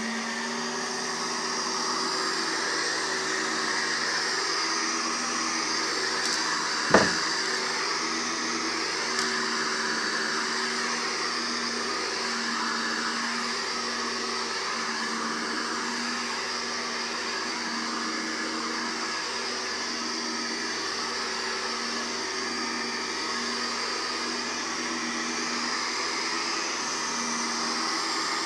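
Minuteman upright vacuum cleaner running steadily as it is pushed over carpet, a motor hum with a high hiss. Once, about seven seconds in, a sharp knock.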